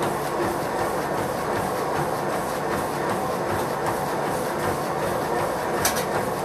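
Feet striking a motorized treadmill's running deck in a quick steady rhythm, about three footfalls a second, over the steady running of the treadmill's belt and motor. A sharper clack comes near the end.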